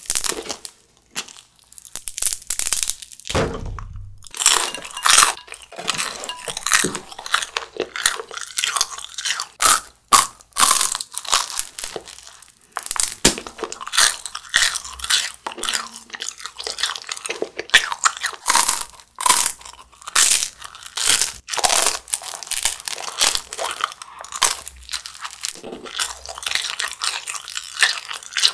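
Close-miked crunching and chewing of a grilled jjondeugi, a chewy Korean starch-stick snack: a steady, irregular run of crisp crunches with chewing between them. A dull low bump sounds about three and a half seconds in.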